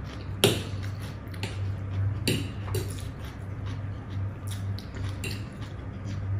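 Forks clicking and scraping on ceramic plates while glass noodles are eaten, with a sharp clink about half a second in and another a little after two seconds. A steady low hum runs underneath.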